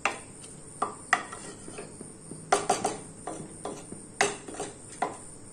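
A spatula stirring rice and chicken in watery broth inside a pressure cooker, knocking and scraping against the pot in a dozen or so irregular clicks.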